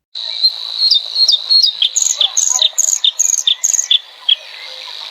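A songbird calling a quick run of short, sharp, repeated notes, about three a second, which stops about four seconds in. Under it runs a steady high insect drone.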